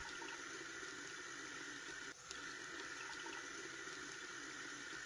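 Water running steadily from a tap, with a brief dip about two seconds in.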